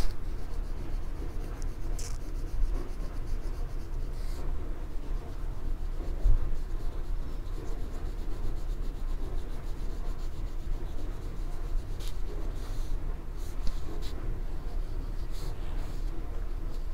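Oil pastel rubbed back and forth on drawing paper in quick, continuous strokes as an area is coloured in.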